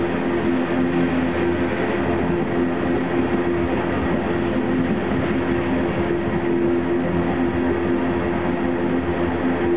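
Loaded coal hopper cars of a long Norfolk Southern freight train rolling steadily past: a continuous rumble and rattle of wheels on rail, with a few steady low tones running through it.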